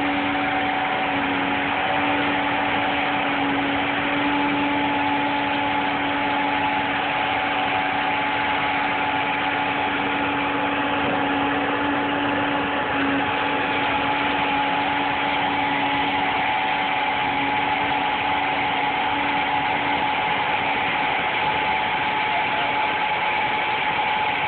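An engine idling steadily, a constant hum over a noisy hiss, with no change in speed.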